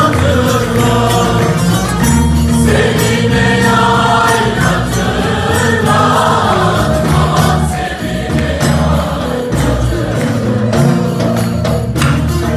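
Mixed choir singing a Turkish folk song (türkü) in unison, accompanied by bağlama, violins and a steady drum beat.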